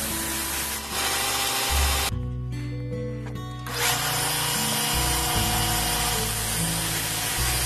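A power tool running with a steady hiss that stops for about a second and a half near the middle and then starts again, under background music with sustained bass notes.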